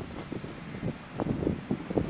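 Wind buffeting the microphone in irregular low gusts, over the faint running of a diesel multiple-unit train pulling away.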